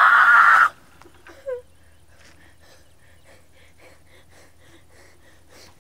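A woman's loud, strained cry of effort lasting under a second, then a short whimper falling in pitch about a second and a half in, then only faint quick pulses.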